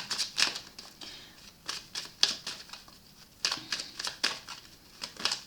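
Tarot cards being handled: irregular crisp flicks, slaps and rustles of card stock, in several short clusters.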